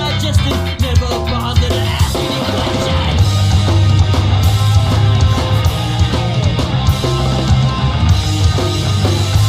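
Loud rock music with drum kit, electric guitar and a heavy bass line.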